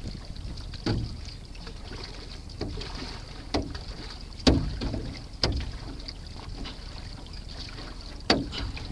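Single-blade canoe paddle strokes on flatwater: about six sharp splashes as the blade enters the water, at uneven intervals. Steady wind noise on the microphone runs underneath.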